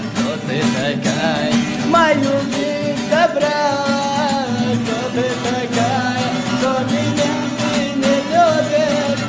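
A song playing: a voice singing a wavering, ornamented melody over plucked-string and guitar accompaniment.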